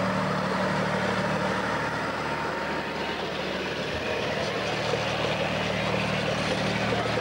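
Engines running steadily at low speed close by, first a farm tractor pulling a wagon, then a van, as they roll slowly past.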